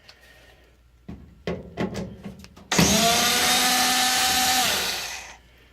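A few light clicks and knocks, then a power drill-driver running steadily for about two and a half seconds, backing out a Phillips screw. The motor winds down near the end.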